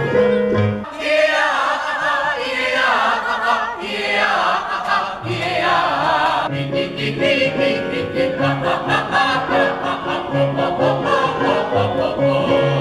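A group of singers singing together in a vocal warm-up. From about five seconds in, a rhythm of repeated low accompaniment notes runs under the voices.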